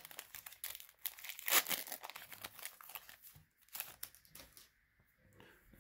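Foil trading-card booster-pack wrapper crinkling as Pokémon cards are handled and laid down onto piles: irregular rustles and scrapes that die down near the end.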